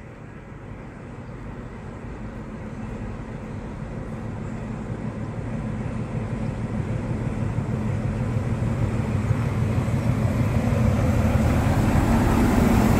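Class 43 HST diesel power car approaching along the platform, its engine and wheels growing steadily louder until the power car draws alongside near the end.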